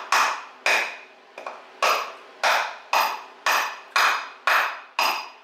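Block of wood striking a steel pinion yoke, tapping the tight-fitting yoke onto the pinion shaft of a GM 8.2-inch 10-bolt rear axle. A run of sharp knocks, about two a second after a short pause about a second in, each with a brief metallic ring.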